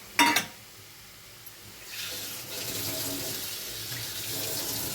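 A utensil clinks sharply against the pan, then, from about two seconds in, a steady hiss of the chicken-and-potato filling frying in the pan.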